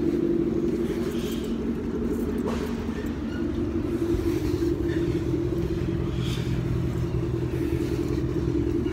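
Steady mechanical hum over a low rumble.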